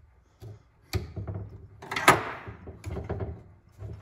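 Metal clicks and clanks of pliers working at the steel window-regulator mechanism and its small locking clip. The loudest is a sharp clank about two seconds in, with a short ring.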